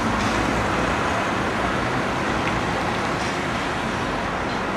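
Steady city traffic noise, an even rumble and hiss with no distinct events.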